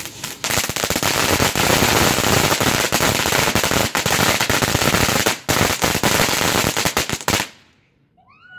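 Fireworks: a rapid, dense run of firecracker bangs crackling for about seven seconds, then stopping suddenly.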